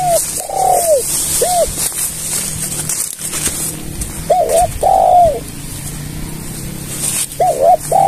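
Spotted dove cooing: three phrases of a few short rising-and-falling coos each, one about every three to four seconds.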